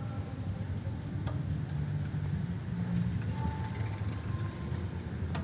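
Steady low rumble of wind buffeting the phone's microphone while riding a bicycle, with tyre noise from the rolling bike underneath and a faint click a little after a second in.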